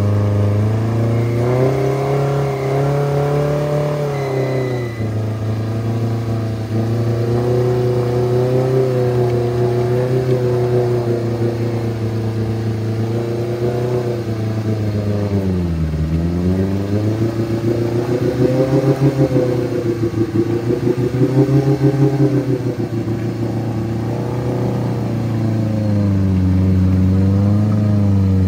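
An off-road 4x4's engine running under load, its revs rising and falling. About halfway through the revs drop sharply, then climb again with a few seconds of quick surges.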